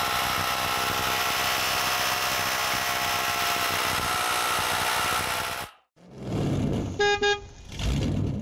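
Keyang 20V MAX HD20BLH-24T cordless hammer drill boring into concrete, running steadily for about five and a half seconds before cutting off abruptly. Then come cartoon whooshes and a short car-horn beep a second later.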